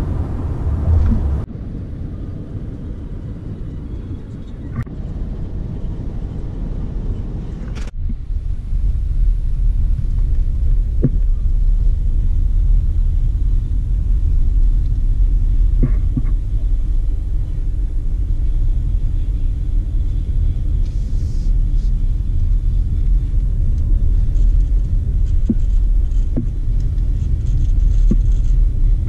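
Car interior road noise: a steady low rumble of the car's tyres and engine on a dirt road, with a few faint clicks over the bumps. The rumble gets louder about eight seconds in.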